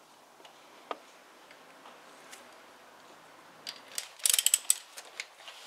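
Ratchet wrench with a hex bit clicking as a camshaft housing bolt is backed out: a single click about a second in, then a quick run of sharp clicks near the end.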